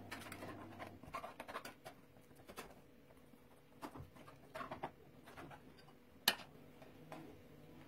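Light, irregular clicks and taps of a serving utensil against a baking dish and plate as lasagne is cut and served, with one sharper knock about six seconds in.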